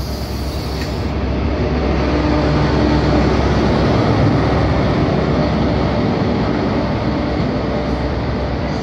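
First Great Western HST (InterCity 125) moving off: its coaches and then the rear Class 43 diesel power car pass close, the engine running steadily over the wheel noise on the rails. It is loudest about three to four seconds in as the power car goes by, then eases slightly as it draws away.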